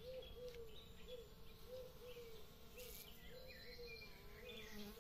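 Honeybees buzzing at lemon blossoms, a low hum that wavers up and down in pitch, with small songbirds chirping and trilling in the background.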